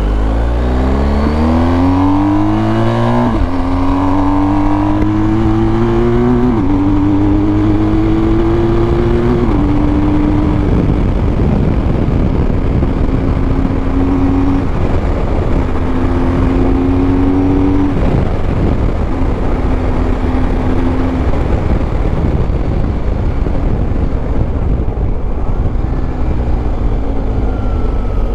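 BMW R1250 GS Adventure's boxer-twin engine accelerating hard, its pitch rising and dropping sharply three times in the first ten seconds as it shifts up through the gears. It then holds a steady cruise under heavy wind noise and eases off near the end.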